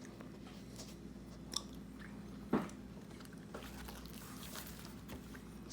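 Biting and chewing on salted dried walleye, small crunches and wet clicks over a steady low hum, with a single thump about two and a half seconds in.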